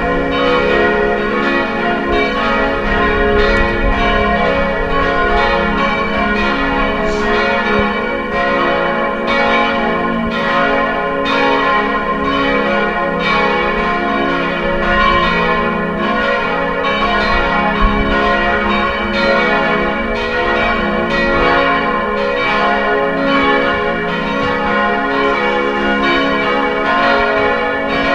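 Church bells pealing: several bells struck over and over in steady succession, their tones overlapping and ringing on.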